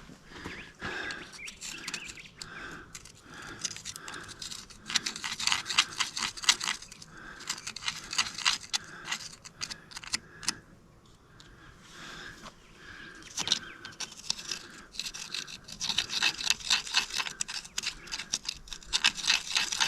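Hand tool scraping and scrubbing packed dirt and old grease from the excavator's grease fittings, a rapid back-and-forth rasp in bursts. It is loudest about a third of the way in and again over the last few seconds.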